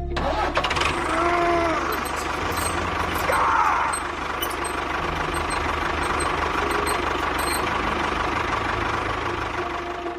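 A motor running with a steady, noisy whir that starts abruptly.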